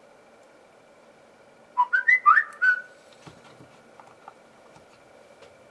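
A short whistled phrase of a few quick, gliding notes about two seconds in, followed by a few faint small clicks.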